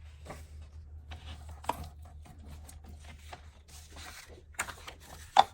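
Paper and cardstock pieces being handled on a desk: light rustles and small clicks, with one sharp tap near the end, over a low steady hum.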